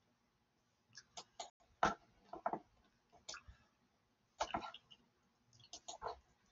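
Faint computer mouse clicks, scattered short sharp clicks with gaps of up to a second between them.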